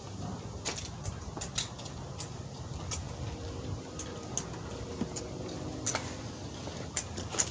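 Scattered light clicks and taps, about ten of them and unevenly spaced, from door parts being handled during reassembly, over a steady low hum.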